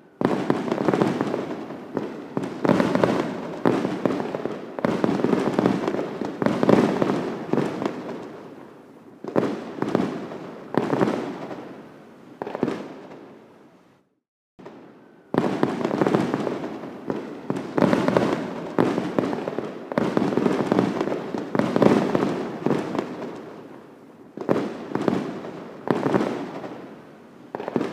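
Fireworks display: a quick run of bursts, each trailing off in crackling, with a brief silent break just past halfway.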